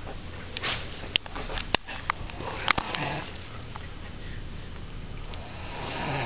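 A sleeping person snoring: slow, noisy breaths with a low rattle, one about three seconds in and another building near the end, with a few sharp clicks in between.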